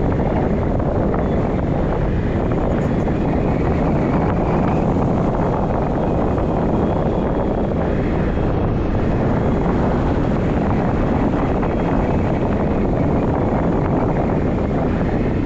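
Steady rush of wind buffeting the microphone from the airflow of a tandem paraglider in flight.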